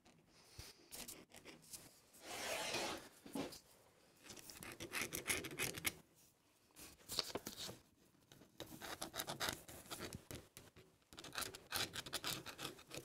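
Pencil scratching on a wooden shoe-last block as it traces the profile line along a paper template, in several short bursts of strokes with brief pauses between.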